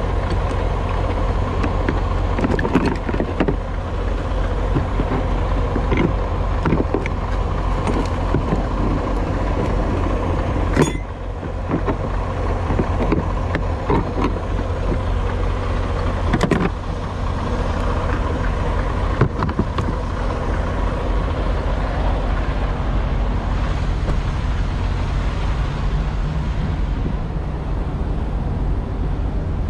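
Semi-truck diesel engine idling steadily, with scattered short clicks and knocks over it.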